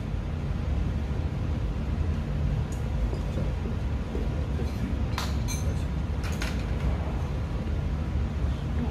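A metal ladle clinking against a cooking pot and bowl, twice a little past halfway, as ramen broth is ladled out, over a steady low rumble.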